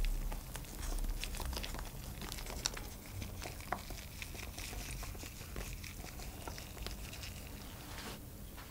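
Shredded mozzarella sprinkled by a gloved hand onto a tray pizza: many small, soft ticks as the shreds land on the tomato slices, with a light crinkling rustle and a low soft bump or two in the first second.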